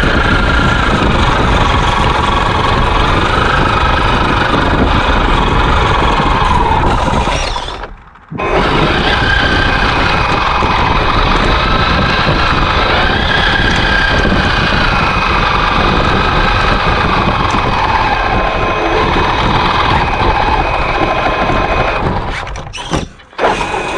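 Traxxas X-Maxx RC truck's electric motor and drivetrain whining, the pitch rising and falling with the throttle, over a steady rumble as the truck drives through snow. The sound cuts out briefly about eight seconds in and dips again near the end.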